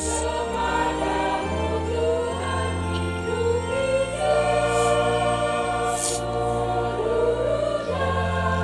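Church choir singing a hymn in parts, accompanied by an electronic organ whose sustained bass notes shift pitch a few times under the voices.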